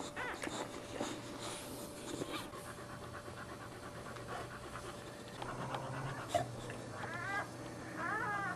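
Boxer dog panting steadily, with wet licking sounds early on, and newborn puppies giving short high wavering squeals twice near the end.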